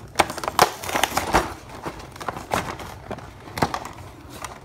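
Clear plastic blister window and cardboard of a toy-car box crinkling and crackling as it is handled, in a series of separate sharp crackles and clicks.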